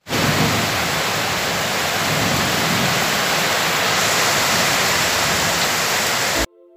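Heavy downpour of rain, a steady dense hiss that cuts off suddenly near the end.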